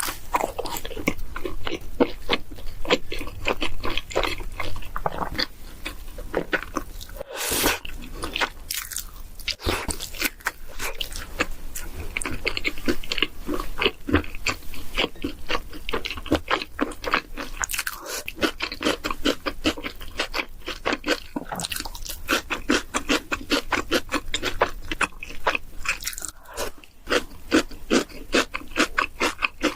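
A person chewing food with crisp crunching: many quick bites and chews, one after another.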